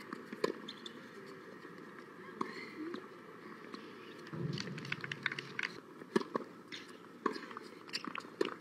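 Tennis balls struck by rackets and bouncing on a hard court during a point, with sharp pops coming roughly a second apart in the second half, over a steady outdoor background.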